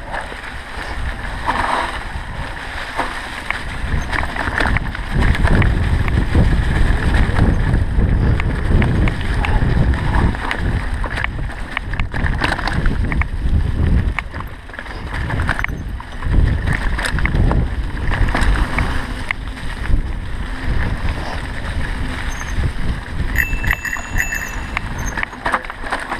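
Mountain bike descending a rough singletrack trail: a continuous rumble of tyres and wind on the microphone, broken by irregular clattering rattles as the bike goes over rocks and roots. A brief high ringing tone comes near the end.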